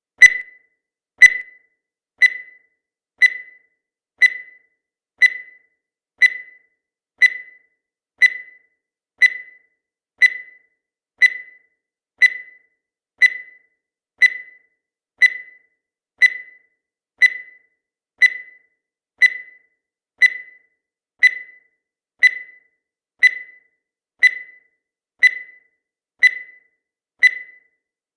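Countdown timer sound effect: a short, high beep with a quick fade, repeating steadily once a second.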